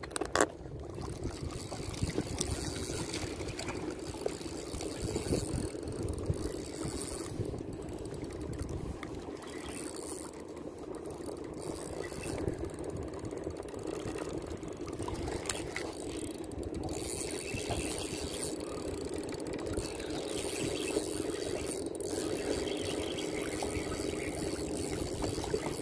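Fishing reel being cranked steadily, its gears whirring with light clicking, as a freshly hooked fish is reeled in.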